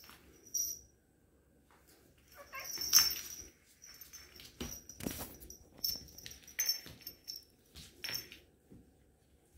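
Cats playing: scuffling with sharp knocks, the loudest about three seconds in, and many short high squeaks.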